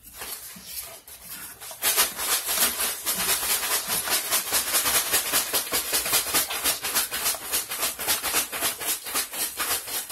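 Fast, rhythmic scraping and rattling of ice in a toy ice cream maker, several strokes a second, starting about two seconds in.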